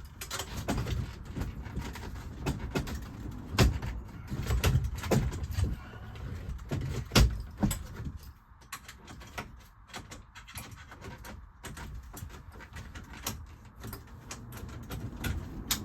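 Irregular clicks, knocks and rattles of metal bunk rails and their securing clips being handled and fitted, with two sharper knocks around four and seven seconds in.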